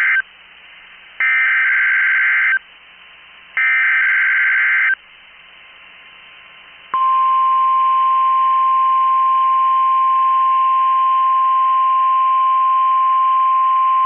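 NOAA Weather Radio Required Weekly Test alert: the end of one SAME digital header burst, then two more harsh data screeches of about a second and a half each, a second apart. After about two seconds of faint hiss, the steady 1050 Hz weather radio warning alarm tone starts about 7 seconds in and holds.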